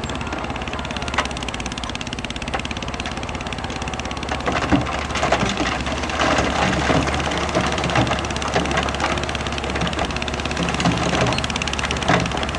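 Bulldozer's diesel engine running steadily. From about four seconds in, irregular metallic clanks and knocks join it.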